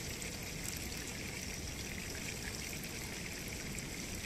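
A steady rushing noise.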